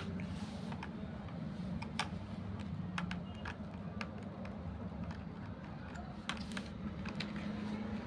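A screwdriver working the small screw of a toy RC car's plastic battery cover: scattered light clicks and scrapes of metal on plastic, irregularly spaced, over a steady low hum.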